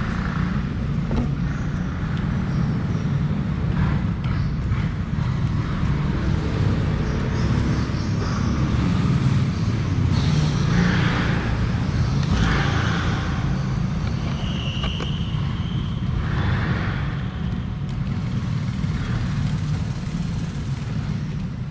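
Steady low rumble of motor-vehicle noise in the background, with occasional faint clicks and brief scraping sounds of small hand-tool work on top.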